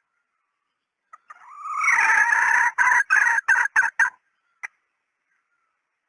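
Red junglefowl hen calling, as used as a hunting lure call: one call that rises and is held loud for about a second, then breaks into about six short clipped notes, followed by one brief note.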